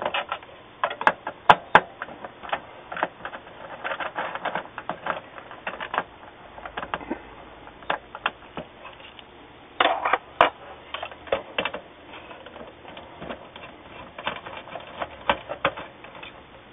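A hand screwdriver backing screws out of a Dell Optiplex 745 motherboard in its metal desktop case: irregular small clicks and metallic taps in clusters, the sharpest about a second and a half in and around ten seconds in.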